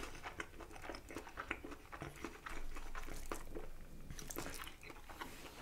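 Person chewing crispy fries: a run of small crunches and crackles as they are bitten and chewed.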